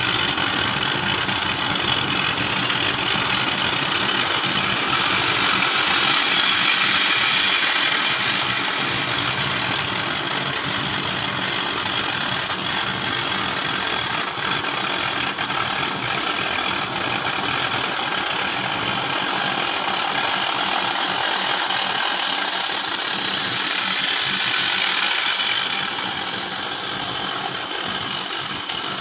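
Oxy-fuel cutting torch on a CNC flame-cutting machine hissing steadily as its oxygen jet burns through 20 mm mild steel plate, with a low engine-like hum underneath.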